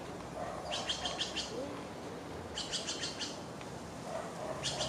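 A small bird singing a short phrase of rapid, high chirps, about half a dozen notes, repeated three times about two seconds apart.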